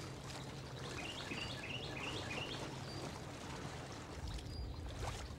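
Quiet outdoor ambience with steady low background noise and a faint hum. A bird sings a quick run of six or seven short rising chirps, starting about a second in and lasting about two seconds.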